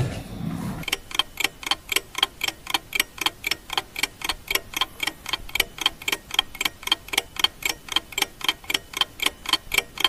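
Steady, evenly spaced ticking, about five ticks a second, with no pauses.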